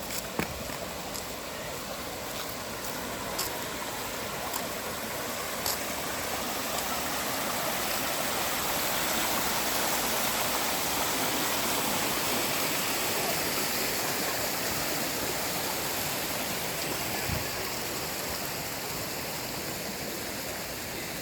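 Mountain valley stream rushing over rocks, a steady rush of water that grows louder through the middle and eases again near the end. A few sharp clicks sound in the first few seconds.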